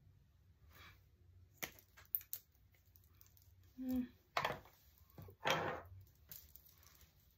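Light clicks and taps of makeup products and tools being handled. Around the middle there is a short hum and two louder breathy rustles.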